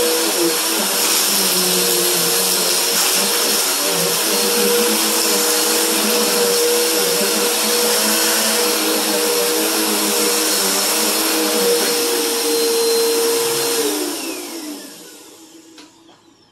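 Upright vacuum cleaner running steadily over a carpet runner, its motor giving a steady hum and whine. About fourteen seconds in it is switched off, and the whine falls in pitch as the motor spins down to a stop.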